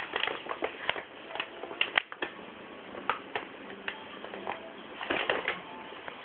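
Paper bag crinkling in irregular crackles and ticks as a kitten moves about inside it.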